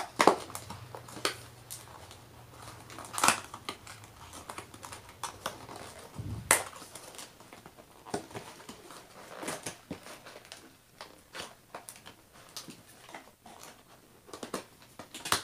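Cardboard diamond painting kit box being handled and opened: scattered rustles, scrapes and taps of cardboard, with a few louder knocks, the sharpest about three and six and a half seconds in.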